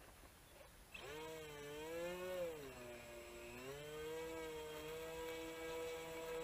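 Electric motor and propeller of a radio-controlled model plane running, starting about a second in; its pitch rises and falls with the throttle, then holds steady.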